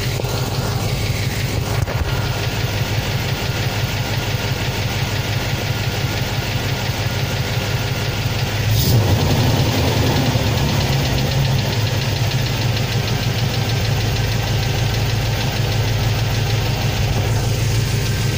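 Chevrolet 350 TBI small-block V8 idling cold with a fast, steady valve-train tick: an unpleasant, nasty sound that the owner puts down to collapsed hydraulic lifters. A sharp click comes about nine seconds in, and the engine runs a little louder for a couple of seconds after it.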